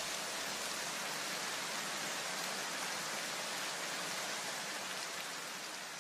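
Steady, even hiss with no music or voices, starting to fade near the end.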